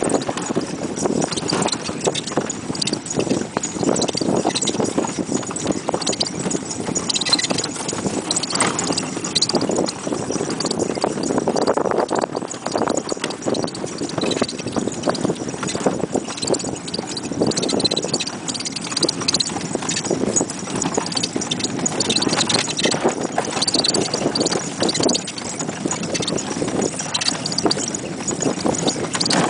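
Pony's hooves clip-clopping steadily on a dirt road as it pulls a horse cart.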